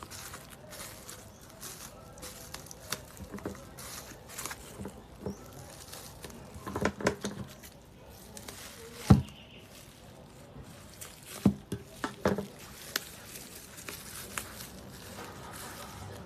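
Handling of a package and small objects: scattered clicks and short knocks, with a few louder knocks in the middle and a single sharp knock about nine seconds in, the loudest.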